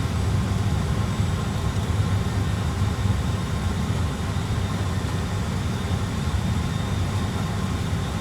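Airbus A320 full-flight simulator's cockpit sound system playing a steady low rumble of the landing roll-out with reverse thrust selected, the aircraft decelerating on the runway.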